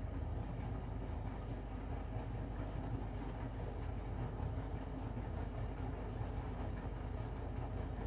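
Bosch front-loading washing machine running a 90° drum-cleaning wash: a steady low hum of the motor and turning drum, with water sloshing inside.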